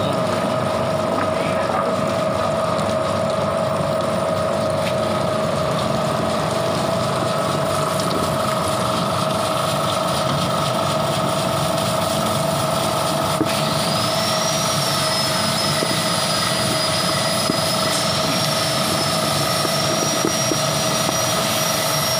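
Rhizome washing and peeling machine running with a steady hum, peeling turmeric. A faint high whine joins about halfway through.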